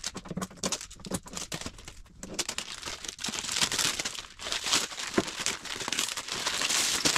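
Clear plastic protective film and tape being peeled and pulled off a 3D printer's front door panel: an irregular crinkling and tearing crackle with many sharp snaps, getting louder and denser in the second half.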